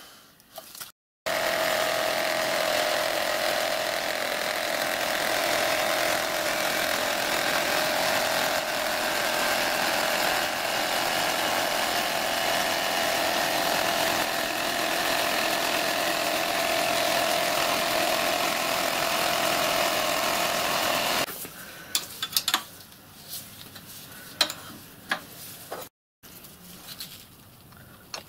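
Milling machine running, its end mill cutting along the top edges of brass plates clamped between wooden blocks: a loud steady cutting noise with a sustained whine. It stops abruptly about 21 seconds in and is followed by scattered clicks and knocks of the workpiece and clamps being handled.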